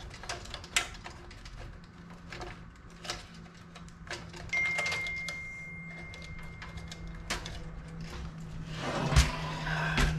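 Scattered clicks and taps of power-supply cables and plastic connectors being handled and routed through a PC case, with a heavier thump about nine seconds in. A faint thin whine sounds for a few seconds in the middle.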